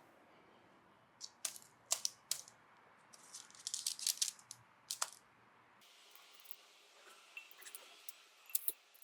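Light clicking and clattering of hard, crisp pieces knocking together and against a dish, in irregular clusters.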